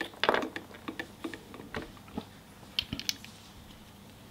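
Small plastic Kinder Surprise toy pieces clicking and tapping as they are handled and fitted together: a scatter of light clicks that stops about three seconds in.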